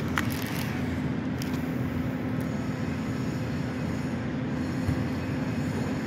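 Steady low mechanical hum with a constant tone, running evenly without change.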